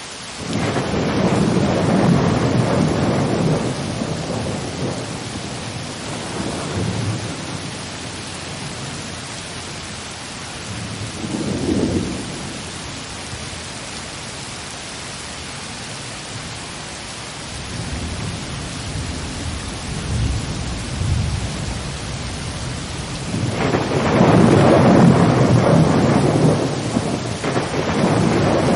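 Thunderstorm: steady heavy rain with thunder rolling through it several times. The longest, loudest roll comes near the end.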